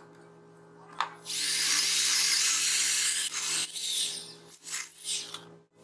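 Cordless drill with a twist bit boring into plywood, chips scraping out of the hole. There is a click about a second in, then about three seconds of steady drilling, then a few short bursts before it stops abruptly.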